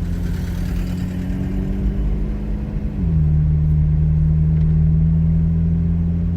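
McLaren Artura's twin-turbo V6 running under steady throttle, its pitch creeping up and then dropping sharply about three seconds in at an upshift, a little louder afterwards.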